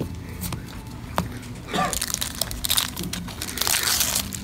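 Foil booster-pack wrappers for trading cards crinkling and rustling in the hands as the packs are opened. The crackling gets busier about two seconds in.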